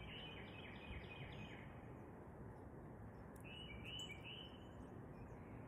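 Faint outdoor background with a small bird singing: quick runs of short high notes near the start and again about three and a half seconds in, over a steady low background noise.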